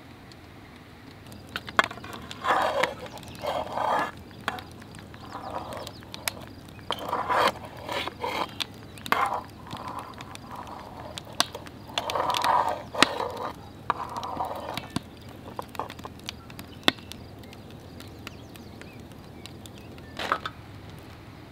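A wooden spoon scraping and knocking in a cast iron pot and on a metal plate as sauce is served. There is a run of short scrapes and sharp clicks with pauses between them, mostly in the first two-thirds, and one last clatter near the end.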